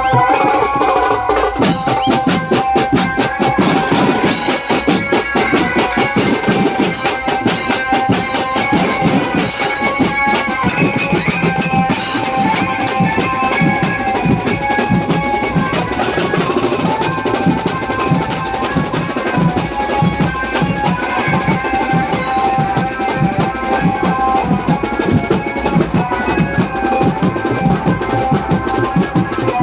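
Loud procession band music: dense, fast drumming with a sustained melody line running over it, typical of a Ganesh procession.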